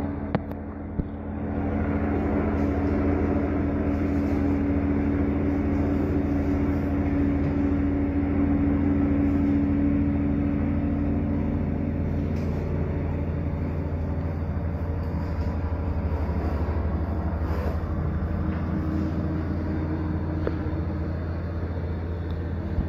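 Helicopter in flight: steady drone of its rotor and turbine engine, slightly louder a few seconds in and easing off toward the end.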